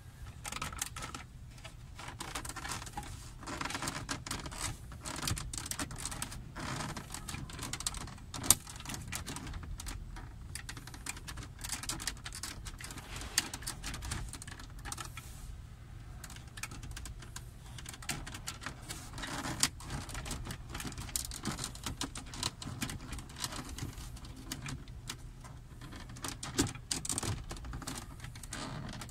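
Brittle hard-plastic dashboard center panel of a Mitsubishi Lancer GLi clicking, creaking and rattling in quick irregular ticks as hands pry it loose by hand, with a few sharper snaps now and then.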